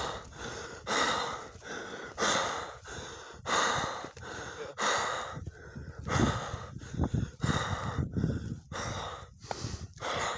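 Heavy breathing close to the microphone, one loud breath about every second and a quarter.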